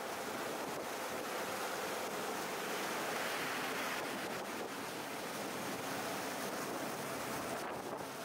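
Water churning in the wake and waves breaking alongside the hull of the FPB 78 motor yacht as it surfs downwind at speed, with wind on the microphone. Slightly louder about three seconds in.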